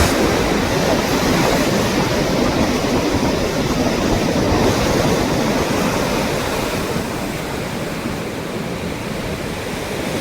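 Steady rushing of water, easing slightly toward the end.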